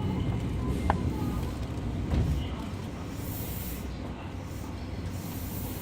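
Fukuoka City Subway 2000 series train running through a subway tunnel: a steady low rumble of wheels on rail, with a sharp click about a second in and a brief swell in the rumble about two seconds in.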